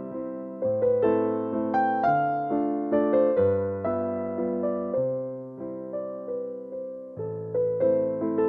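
Background music: solo piano playing a slow melody over chords, a new note or chord struck about once a second and left to ring.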